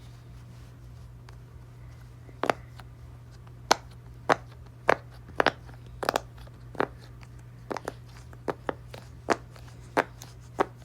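Silicone Pop-It fidget toy being pressed, its bubbles popping one at a time in sharp, irregularly spaced pops that begin about two seconds in. A low steady hum runs underneath.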